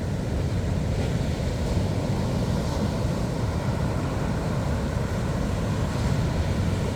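Steady low rumble of Atlantic surf at high tide, mixed with wind buffeting the microphone.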